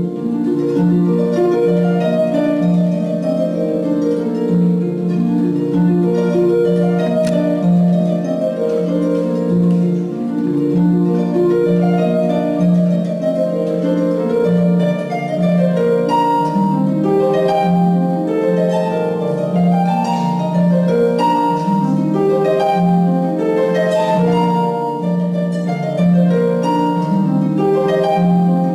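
Solo concert pedal harp playing a classical piece: plucked notes with a low bass note repeating steadily under a running melody.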